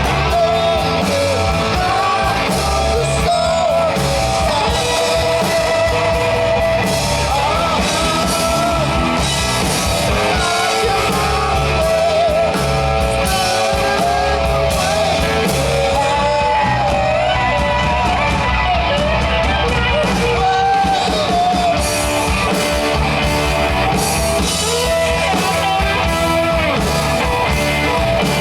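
Rock band playing live: a singer over electric guitar with a steady beat underneath.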